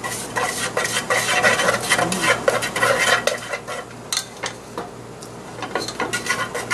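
Chopsticks stirring and scraping melting sugar in a nonstick pot, with many quick clicks and taps against the pot; the sugar is melting into caramel on high heat. The stirring quietens a little after the middle.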